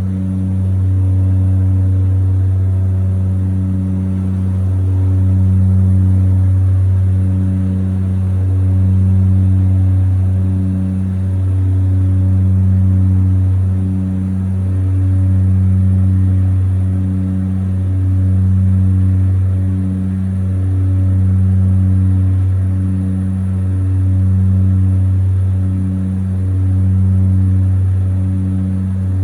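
Seaplane's propeller engines droning steadily in flight, with a slow rise and fall in level about every two seconds.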